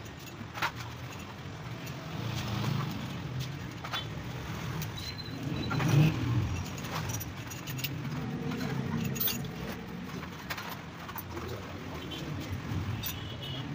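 Light metallic clinks and taps from Honda CG125 engine parts being handled as the cylinder barrel is fitted onto the engine, loudest about six seconds in, over a steady low engine rumble.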